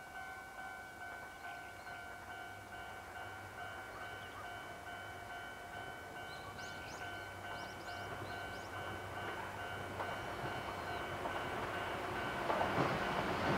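Steady ringing tone with overtones from a level-crossing alarm, while a Chichibu Railway 6000-series electric train approaches and grows louder toward the end. A few short bird chirps come in the middle.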